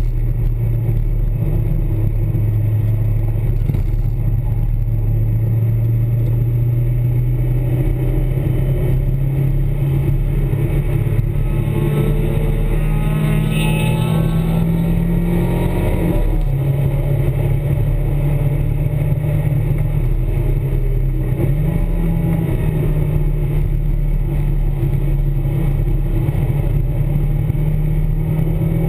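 Onboard sound of a Nissan S12 with an FJ20E 2.0-litre four-cylinder engine running hard on track. The engine note shifts pitch with throttle and gears, drops about halfway through, then climbs steadily again.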